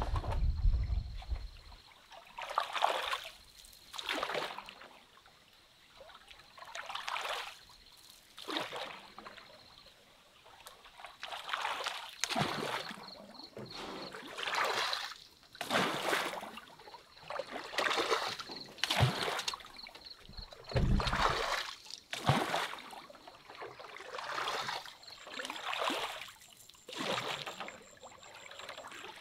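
Water splashing in a regular series of strokes, roughly one every second or so.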